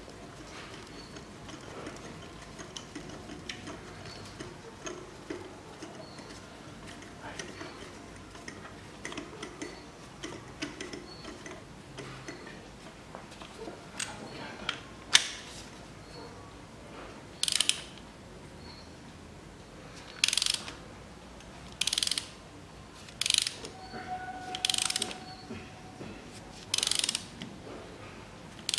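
Hand ratchet on an extension and spark-plug socket, clicking in short bursts every second or two as a new spark plug is tightened into the cylinder head. A single sharp metal click comes just before the ratcheting starts, and there is faint tool-handling noise before that.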